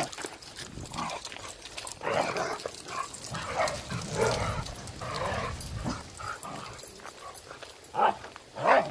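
Several dogs play-fighting, making short, scattered vocal noises through the scuffle, with louder ones about eight seconds in and near the end.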